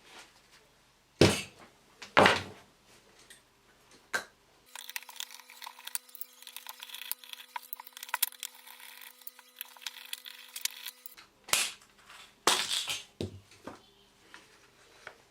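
Several sharp knocks, then several seconds of light crackling and clicking, then another cluster of knocks.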